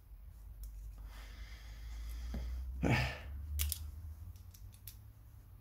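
Scattered light clicks and taps of small chainsaw carburettor parts being handled, with a breath about three seconds in and a low rumble underneath.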